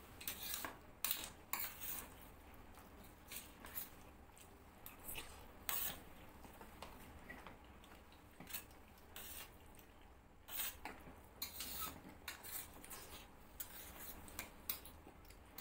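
Steel spoons scraping and clinking on stainless steel plates as two people eat soft dalia, in short irregular strokes.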